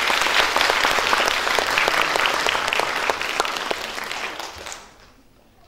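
An audience applauding, a dense patter of many hands that dies away near the end.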